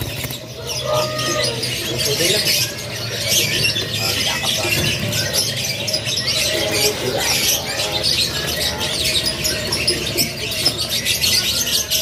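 Many caged young canaries chirping and calling over one another in a dense, unbroken chatter of short high notes.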